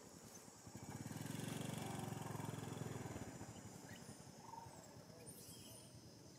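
An engine passing by, swelling up about a second in and fading away over two and a half seconds. A faint short chirp follows later.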